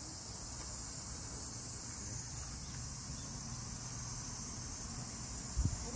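Steady, high-pitched chorus of summer insects, an even shrill hiss throughout, with a few low thumps near the end.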